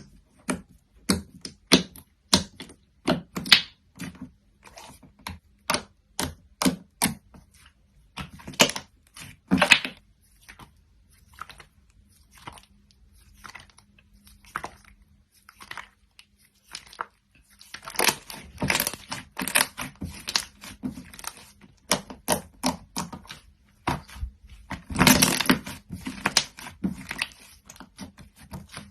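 Glossy slime being pressed, poked and stretched by hand, giving sharp wet clicks and pops of trapped air at an irregular pace, with thicker runs of crackling about two thirds through and again near the end.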